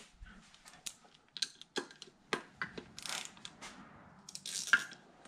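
Scattered clicks, clinks and brief scraping of small metal engine parts and hand tools being handled on a workbench while the engine's top end is taken apart.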